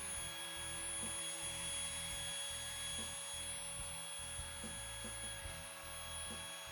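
Small router or rotary tool running at high speed with a steady whine while routing out a crack in the wood of a guitar.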